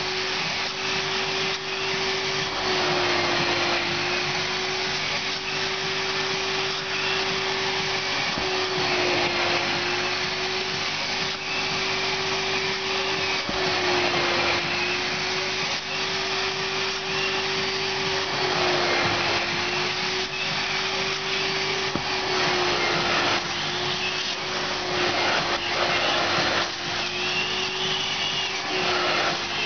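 Spray-extraction upholstery cleaner's vacuum motor running steadily, with a rushing suction hiss as the hand nozzle is drawn across a fabric car seat. Its steady whine dips slightly in pitch every few seconds.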